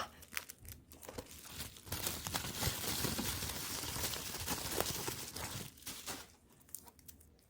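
Packaging being crinkled and torn by hand, a few sharp crackles at first, then a dense stretch of crinkling and rustling from about two seconds in, dying down to light crackles near the end.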